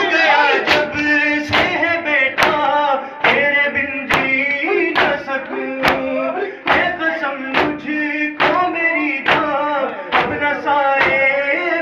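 Men's voices chanting a noha lament while the crowd beats their chests (matam) in time, a sharp hand slap a little more than once a second.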